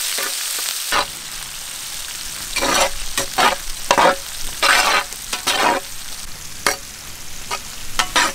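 Freshly added sliced onions sizzling in hot oil in a large wok, with a metal ladle stirring and scraping through them in a run of irregular strokes from about two and a half seconds in.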